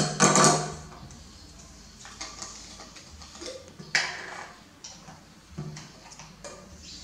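Plastic bottles handled on a hard tabletop: a few scattered knocks and clicks, the sharpest right at the start and about four seconds in.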